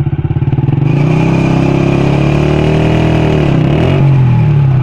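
Small motorcycle engine rigged to drive a circular saw blade revs up from a pulsing idle about a second in and runs at high revs. Its pitch sags and then recovers a little past the middle.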